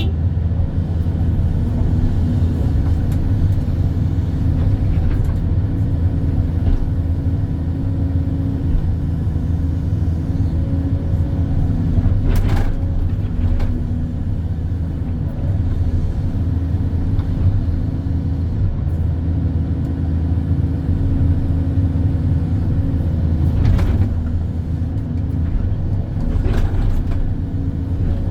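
Hydraulic excavator's diesel engine running steadily, with a few brief knocks scattered through.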